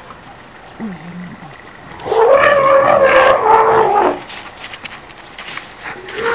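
African elephant trumpeting in anger while charging: one loud call of about two seconds, starting about two seconds in, with a second call beginning near the end. A shorter, lower call comes about a second in.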